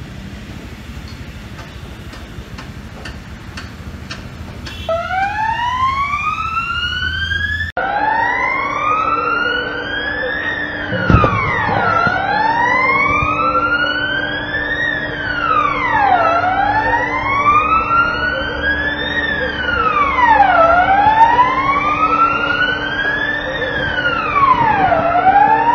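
Fire engine siren wailing. It comes in about five seconds in, over traffic noise, then cycles in slow sweeps that each climb for about three seconds and drop in about one. A single knock sounds about eleven seconds in.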